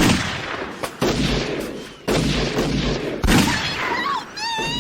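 Gunfire in a drive-by shooting: about four heavy, booming shots roughly a second apart, each trailing off in a long echo.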